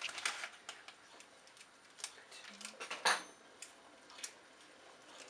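Scattered light clicks and crinkles of a small plastic packet being handled as a cinnamon stick is taken out, with one sharper click about three seconds in.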